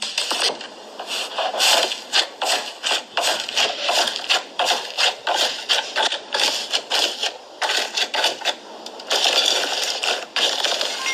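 Slime being handled, crackling with quick irregular clicks and pops, thickening into a denser crackle about nine seconds in.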